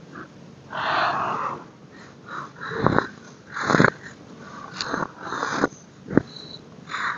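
Molded chunks of baking soda crushed and squeezed between the fingers, a run of irregular crunches with a few sharp cracks among them.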